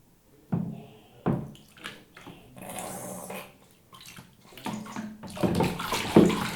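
Bathwater splashing as a baby plays in the tub: single splashes about half a second and just over a second in, a brief rush of water around three seconds, then denser, louder splashing and sloshing from about five seconds on.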